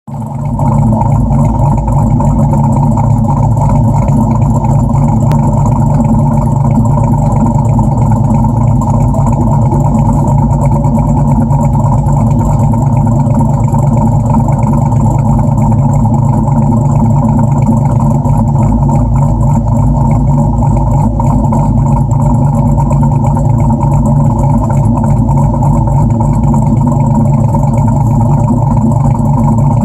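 Dodge Challenger R/T's 5.7-litre Hemi V8, fitted with a Comp Cams 274 camshaft, idling steadily and loudly through its exhaust while still cold just after a cold start.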